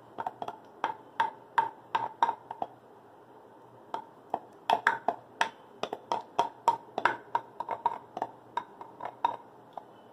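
A wooden spatula knocking and scraping against a glass bowl as thick mango-yogurt batter is pushed out into a steel mixer jar. It makes a run of quick, light, irregular knocks with a short pause about three seconds in.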